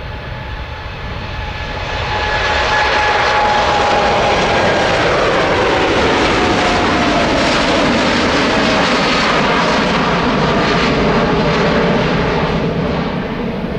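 Boeing 747-8F's four GEnx turbofans at take-off power during lift-off and climb-out. The engine noise swells about two seconds in and holds loud, with a whine that falls in pitch as the jet passes, then starts to fade near the end.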